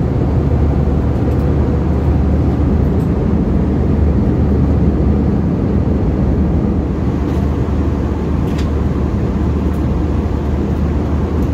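Steady cabin noise of an Airbus A321 airliner in cruise: a constant low rumble and airflow hiss from the engines and the air rushing past the fuselage.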